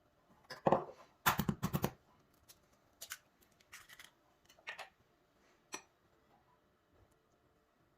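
Kitchen prep handling sounds: scattered knocks and clinks of utensils and dishes, with a quick run of about five sharp strokes about a second in.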